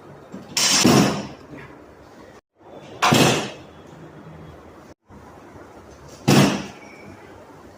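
Three sharp thuds of chiropractic adjustment thrusts on a treatment table, about three seconds apart, each fading quickly.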